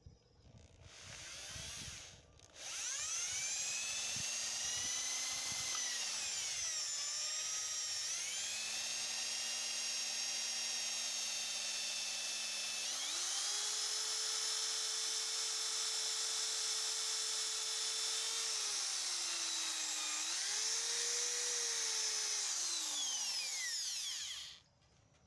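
Electric hand drill with a twist bit boring into the end of a wooden broom handle. The motor whine starts about a second in and cuts out briefly, then runs steadily. It dips in pitch a couple of times, steps up to a higher speed about halfway, and stops suddenly near the end.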